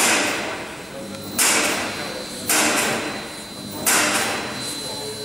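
Four heavy metal clanks, about one every second and a quarter, each ringing and echoing in a large shed, from hand work on a steam locomotive's frame at the buffer beam.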